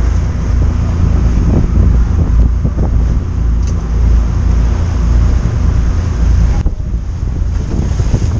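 Wind buffeting the microphone over the steady low drone of a sportfishing boat running under way, with the rush of sea water along the hull.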